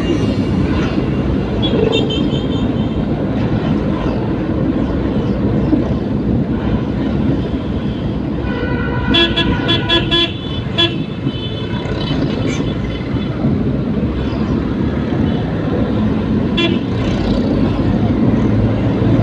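Vehicle horns honking in short repeated toots over steady engine and road noise in traffic: one brief toot about two seconds in, then a rapid cluster of toots a little before halfway through.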